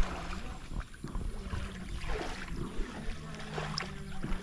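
Water of a stream or pond running and splashing, with scattered knocks and bumps and a sharp thump at the very start.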